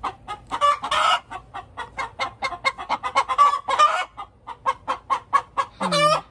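Hen cackling: rapid clucks about five a second, broken by a few long drawn-out calls, the loudest near the end. The keeper takes it as the hen announcing an egg on the way.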